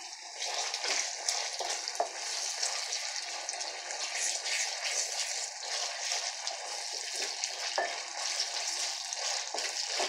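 Carrots and onion with tomato paste frying in oil in a pan, sizzling and crackling steadily, stirred with a wooden spatula.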